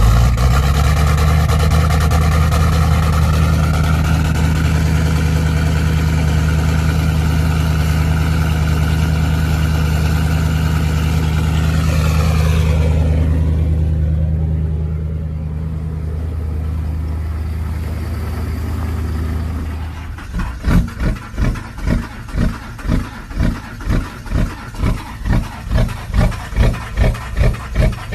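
Diesel engine running steadily at a raised speed, its pitch falling away about twelve seconds in and settling lower. About twenty seconds in the sound changes to an even, slow pulsing, about two or three beats a second.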